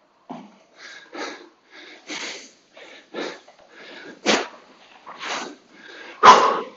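A man breathing hard as he recovers from a hard rowing interval: a run of noisy breaths about one a second, the loudest about four and six seconds in.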